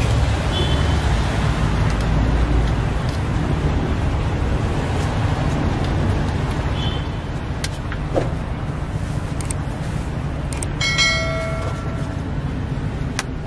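Steady low rumble of traffic-like background noise, with a few light clicks and a brief high-pitched tone about eleven seconds in.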